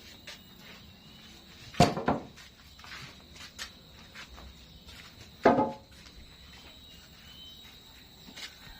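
Two sharp knocks about four seconds apart, each with a short ring, among faint scattered clicks of handling.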